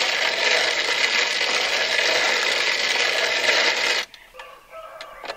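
Hand-cranked grain mill grinding raw rice: a steady, dense grinding rattle of grain being crushed between the burrs. It stops abruptly about four seconds in.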